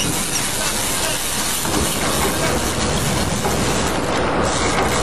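Steady rushing noise of wind on the microphone and a boat running through choppy sea.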